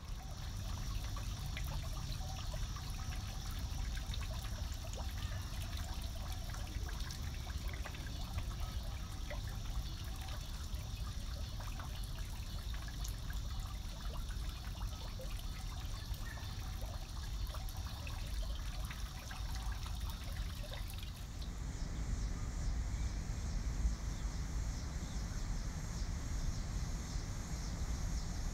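Water from an ornate garden fountain falling in drops and thin streams into its basin: a dense, steady patter of small splashes over a low rumble. About twenty seconds in the splashing gives way to the low rumble and a steady high hiss.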